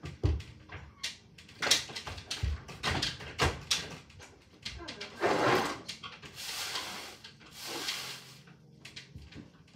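Small objects being handled on a wooden dresser: a run of sharp clicks and knocks as things are picked up and set down, with stretches of rustling between them.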